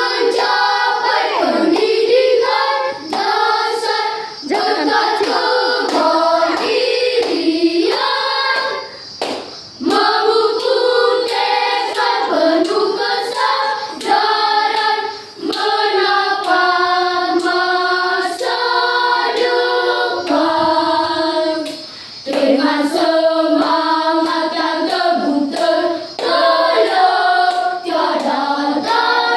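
A children's vocal group singing together in phrases with short breaths between them, with sharp hand claps keeping time through the song.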